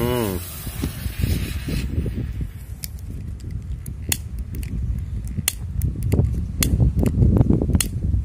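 Colour smoke ball hissing as it spews purple smoke, the hiss dying out about two seconds in. After that, strong wind buffets the microphone with a low, gusty rumble, with scattered sharp clicks about once a second.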